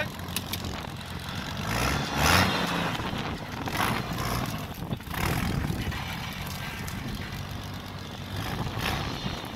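Engine of a turbocharged 1993 Jeep Cherokee running under load while crawling slowly off-road, revving up about two seconds in. Short bursts of hiss come about two, four, five and nine seconds in.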